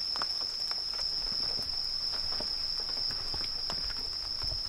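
A steady, unbroken high-pitched chorus of night insects, with a few faint crunching steps on dry leaf litter.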